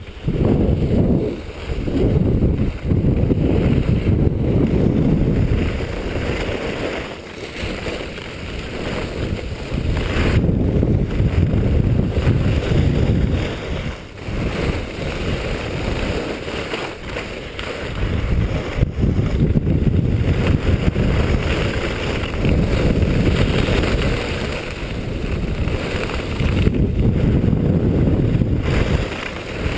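Wind buffeting the microphone while skiing downhill, a loud low rush that swells and eases every few seconds, mixed with the hiss of skis on groomed snow.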